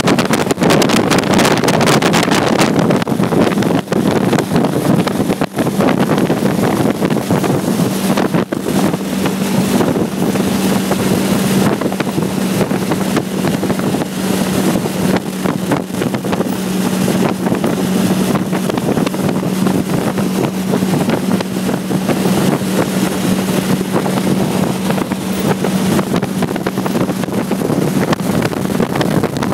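Wind buffeting the microphone in an open 1932 roadster at highway speed, over the steady drone of its engine cruising at a constant pitch.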